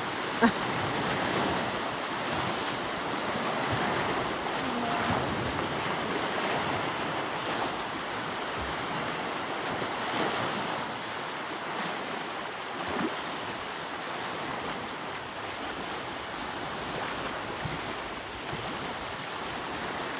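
Steady wash of lakeshore water and wind, with a single short knock about half a second in.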